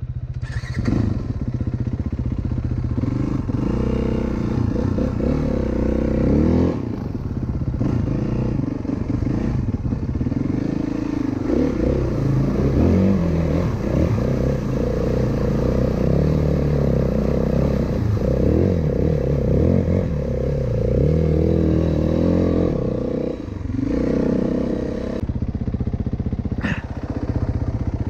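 Single-cylinder four-stroke dirt bike engine running under way, the revs rising and falling with the throttle throughout.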